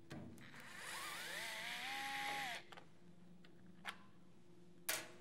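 Cordless electric screwdriver whirring for about two seconds with a whine that rises and then holds, as it backs a screw out of the circuit breaker's molded case. Then come two short sharp clicks, the second near the end and the loudest.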